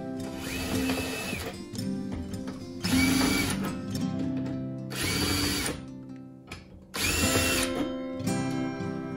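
Cordless drill driving screws through a piano hinge into a pine box: four short runs of about a second each, the motor whine climbing as it spins up and dropping as it stops. Acoustic guitar music plays underneath.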